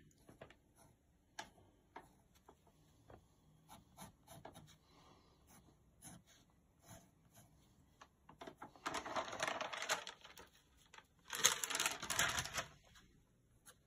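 A Derwent graphite pencil drawing on heavyweight watercolour paper: faint scattered taps and light scratches, then two louder spells of scratchy paper noise, about nine and eleven and a half seconds in.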